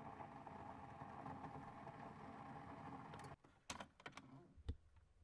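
A faint steady machine hum that cuts off suddenly about three seconds in, followed by a handful of sharp clicks and one louder knock with a low thump near the end.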